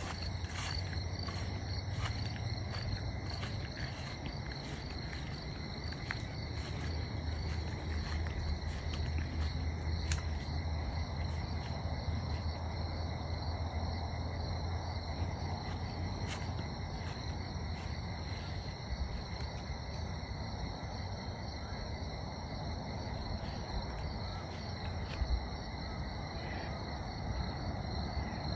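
Evening chorus of crickets and other insects, a steady high chirping, with a low steady hum underneath.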